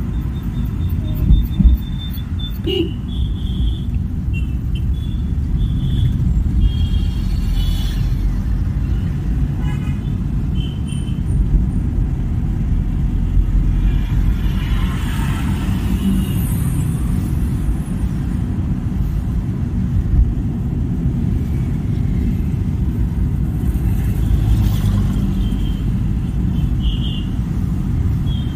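Heavy road traffic: a steady, deep rumble of engines and tyres, with short horn toots several times.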